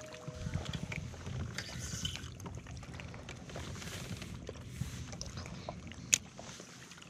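Small kayak sitting on the water, with water lapping and sloshing at the hull and scattered small knocks and ticks of gear. One sharp click comes about six seconds in.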